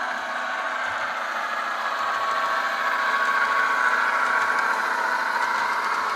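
Simulated diesel engine sound from a Tsunami2 sound decoder, played through the small speaker of an HO scale brass model of the Illinois Central Green Diamond as it runs. A steady drone with no deep bass, growing a little louder midway.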